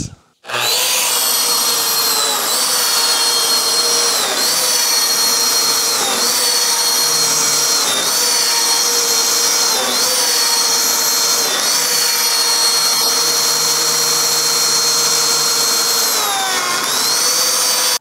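Lamello Zeta P2 joining machine running, its motor whine starting about half a second in. The whine dips briefly in pitch every couple of seconds as the machine plunges and cuts mortises for Tenso connectors into plywood. It cuts off suddenly at the end.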